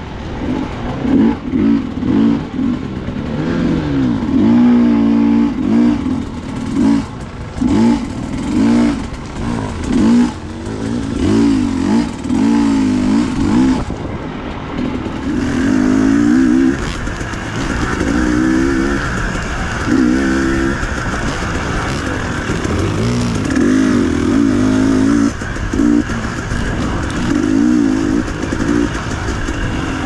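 Dirt bike engine revving up and down again and again as the throttle is opened and closed on an enduro trail, with frequent knocks and rattles in the first half.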